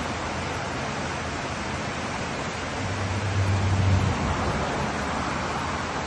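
Snowmelt mountain stream rushing and splashing down a rocky cascade, a steady even rush of water. About halfway through, a low rumble swells for a second or so over the water.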